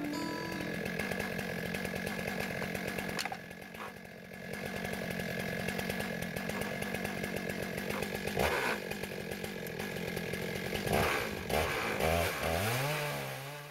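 Stihl MS661 two-stroke chainsaw on an Alaskan chainsaw mill, running at high speed while ripping a maple log lengthwise. Its engine speed sags and recovers once in the second half and several times near the end.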